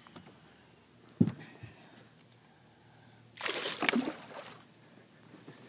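A sharp knock about a second in, then a burst of splashing lasting about a second: a hooked fish thrashing at the surface beside the boat.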